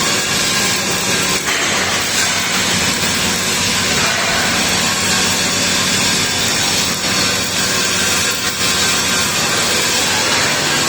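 Flux-cored arc welding with CO2 shielding gas and 1.2 mm wire: the arc gives a steady, dense crackle, with a faint low hum underneath.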